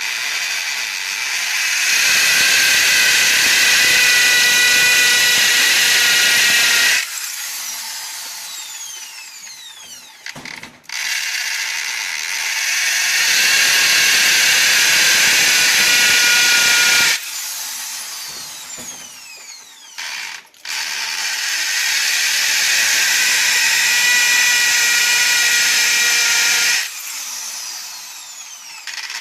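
Makita M816 corded hammer drill running three times, about six seconds each, with a steady high motor whine. Each run cuts off suddenly and is followed by a falling whine as the drill spins down.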